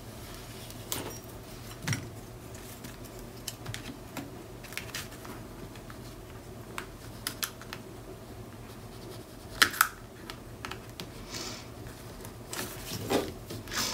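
Hands pressing and smoothing patterned paper onto an album page: scattered light taps, rustles and small clicks, with two sharper clicks a little under ten seconds in.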